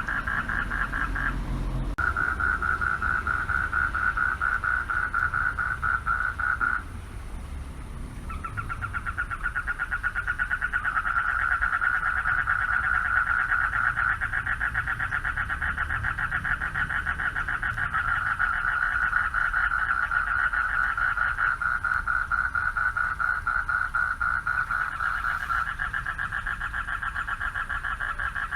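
Male frogs calling for mates in a pond chorus: a continuous fast-pulsed rattling trill that breaks off briefly about two seconds in and again for about a second and a half around seven seconds, then resumes.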